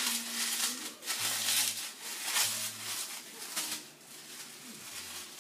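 A graham cracker being crumbled by hand inside a plastic bag: the bag crinkles and crackles in irregular bursts, dying down near the end.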